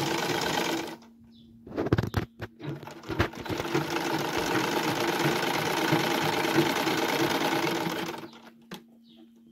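Gloria sewing machine stitching a sleeve hem. It runs for about a second, stops with a few knocks, then runs steadily for about five seconds before stopping near the end.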